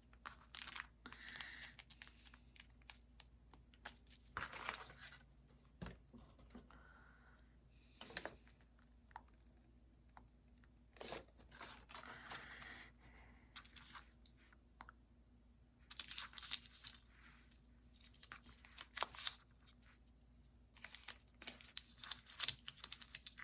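Small plastic craft-kit packaging and parts being handled: irregular bursts of rustling and crinkling with light clicks.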